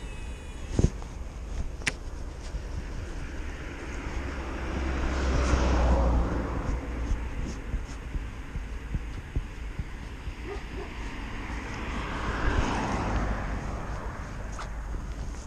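Two road vehicles passing one after the other, each a rush of noise that swells and fades, about five and twelve seconds in. Under them runs a steady low wind rumble on the microphone, with an occasional click.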